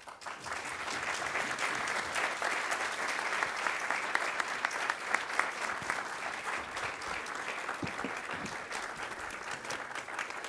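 Audience applauding, swelling over the first second or so and easing off slightly near the end.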